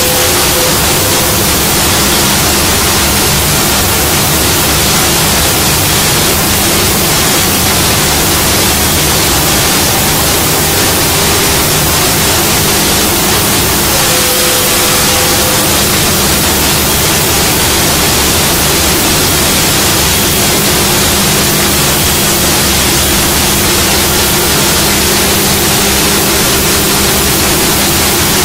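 CNC router with a side-drilling unit running: a loud, steady rushing noise with a faint hum under it, and a brief higher tone twice, near the start and about halfway through.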